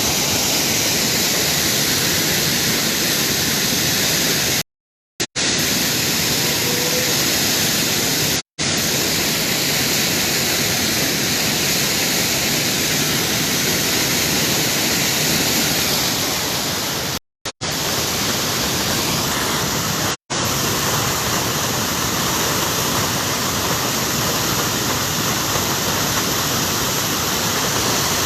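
Waterfall rushing steadily close to the microphone. The sound cuts out completely for a moment four times, at about five, eight and a half, seventeen and twenty seconds in.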